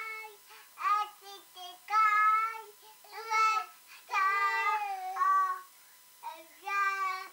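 A toddler boy singing unaccompanied in a high voice, in short phrases of long held, wavering notes with pauses between them.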